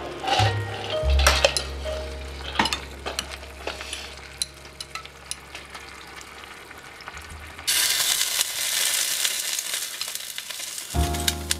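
Background music with small scattered clicks. About eight seconds in, the music drops out and a louder, steady sizzling hiss from the miniature clay pot of broth and vegetables cooking on a tiny stove takes over for about three seconds. Then the music comes back.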